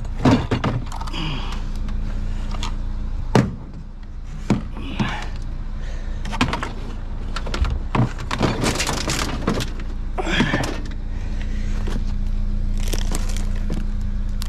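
Things being handled and packed into the back of a vehicle: irregular knocks, clunks and rustling, with one sharp knock about three and a half seconds in, over a steady low hum.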